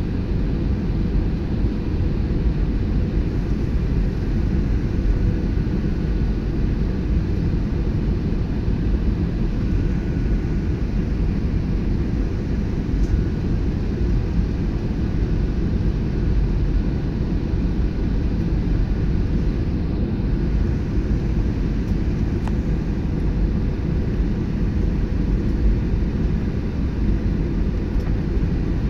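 Airliner cabin noise during the landing approach: the steady low rumble of the jet engines and airflow past the fuselage, unchanging in level.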